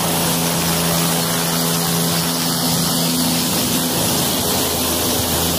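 Helicopter hovering close by: a steady, loud rush of rotor and turbine noise with a low hum beneath it.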